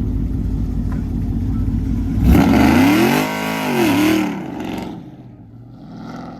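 V8 muscle-car engine running hard, then about two seconds in revving up and back down twice in quick succession with a loud hiss alongside, before falling away near the end.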